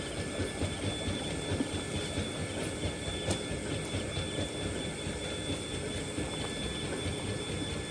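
A cast net being shaken out over a plastic sheet: a dense, steady patter and rustle of many small fish dropping and flapping on the plastic and in the mesh.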